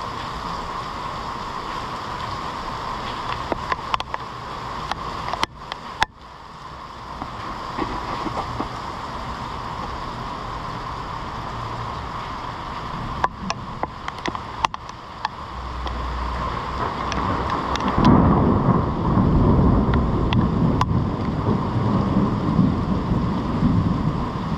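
Heavy rain falling steadily on a paved parking lot and parked cars, a continuous hiss. About eighteen seconds in, a loud low rumble joins it and carries on.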